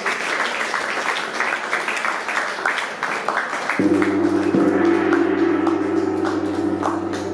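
Audience clapping, then a large hanging gong struck once with a mallet about four seconds in, ringing on with a deep, steady tone under the continuing applause.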